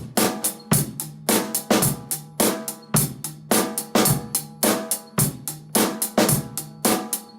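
Acoustic drum kit played in a steady driving pattern of snare, bass drum, hi-hat and cymbal hits, about four strikes a second.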